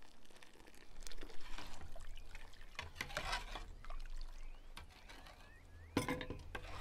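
Broth being ladled up and poured back into a large aluminium pot, splashing and trickling several times. There is a short knock near the end.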